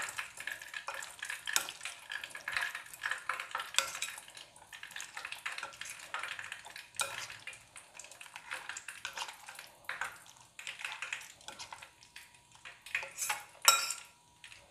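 Spoon stirring thick, yoghurt-marinated chicken in a glass bowl: a busy run of wet scraping and squelching with the spoon knocking against the glass, thinning out after about ten seconds, with a few sharper clinks near the end.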